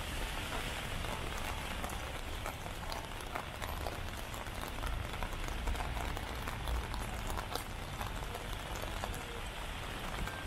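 Steady rain, an even hiss with many scattered drip ticks, over a low rumble.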